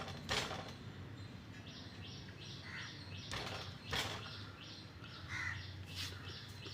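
A few sharp knocks from a spanner working a tight engine-oil drain bolt under a motorcycle. Behind them crows caw, and a bird chirps about three times a second.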